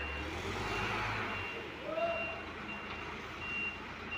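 Reverse alarm on an Isuzu Giga concrete mixer truck sounding a steady series of short high beeps while the truck manoeuvres, over its diesel engine running low. The engine's rumble eases off about a second and a half in.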